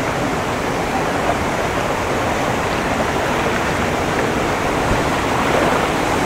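Hogenakkal Falls pouring over rock ledges into churning whitewater, a steady rushing noise heard close to the water.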